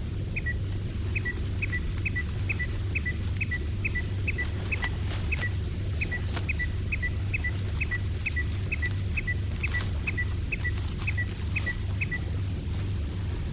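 Daelim Citi Ace motorcycle engine running with a steady low drone, while a turn-signal beeper chirps in a regular two-note pattern about twice a second, stopping about twelve seconds in.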